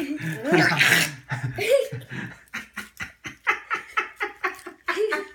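A young boy laughing: excited vocalising at first, then a quick run of short "ha-ha" bursts, about four or five a second, through the second half.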